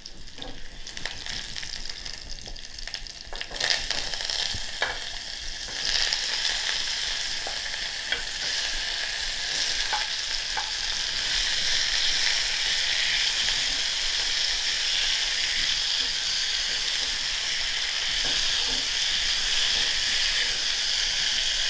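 Boiled cassava (mogo) cubes sizzling in hot oil with mustard seeds and green chillies, stirred with a wooden spoon in a saucepan. The sizzle grows louder a few seconds in as the cassava goes into the oil, then runs steadily, with a few light knocks of the spoon.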